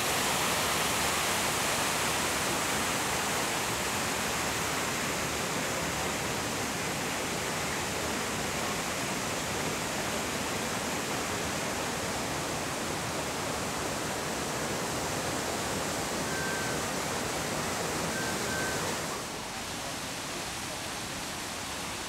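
Steady rush of whitewater from the Rhine Falls and the rapids below it, a dense, even hiss of water that drops a little in level about nineteen seconds in.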